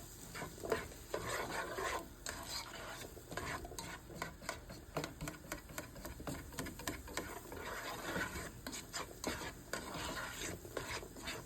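A cooking utensil stirring and scraping food in a pan, with many light clicks and taps against the pan.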